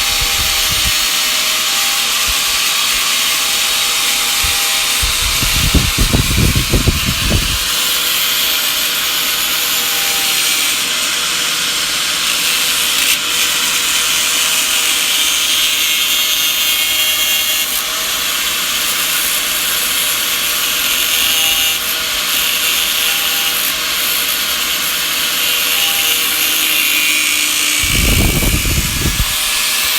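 Power tool spinning a metal-cutting disc against a bicycle hub end cap, a steady hissing grind with a motor whine under it as the cap is shaved down. Short bursts of low rumbling come about six seconds in and again near the end.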